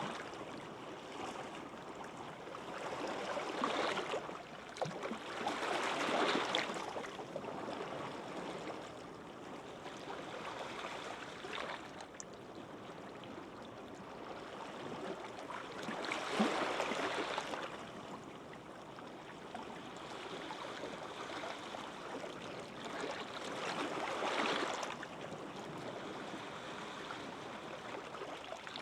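Gentle sea waves breaking and washing ashore, a steady hiss of surf that swells louder four times, at uneven gaps of a few to about ten seconds.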